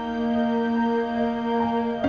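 Background music of slow, sustained chords held steadily.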